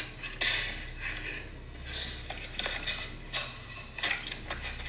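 Scattered light clicks, knocks and rustling swishes at irregular intervals, over a faint steady low hum.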